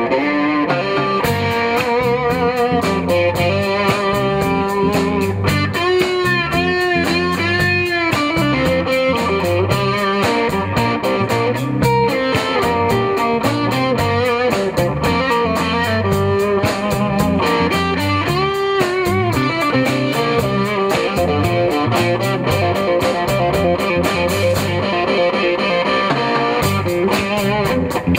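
Live blues band playing an instrumental break: an electric guitar takes the lead with bent, wavering notes over a bass guitar line and a steady drum beat.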